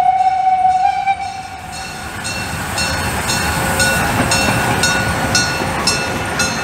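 Steam locomotive whistle blowing for the first two seconds or so, then the train running on with a steady rhythmic beat of about two a second.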